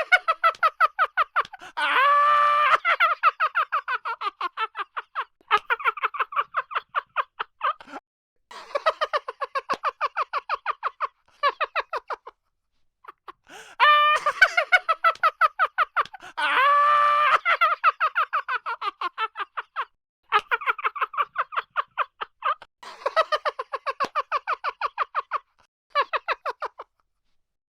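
A high-pitched cackling laugh effect in fast rhythmic runs of about five 'ha's a second, broken by short pauses; the same run of laughter plays through twice.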